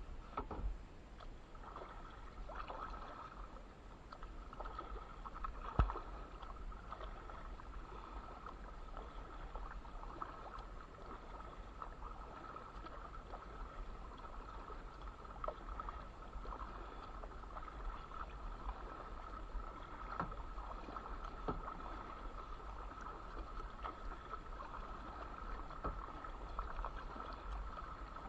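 Kayak paddle strokes on calm water: blades dipping and pulling with repeated splashes and drips. A single sharp knock about six seconds in. A faint steady high tone runs underneath.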